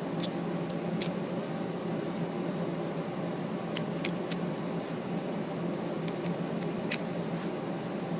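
Scattered light metallic clicks and taps from small hand tools (nut drivers, sockets and bits) being handled, a few at a time, over a steady low hum.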